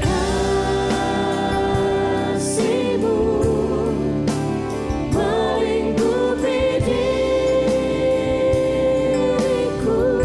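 Christian worship song: singing over a band with regular drum beats, the voice holding long, wavering notes.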